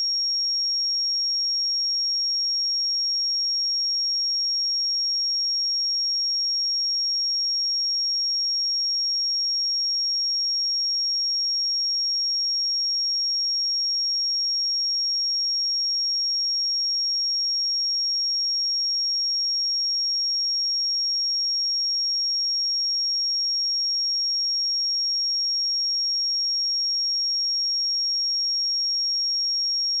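A single pure sine tone at 5574 Hz, a high-pitched steady whistle-like test tone for checking speakers or headphones.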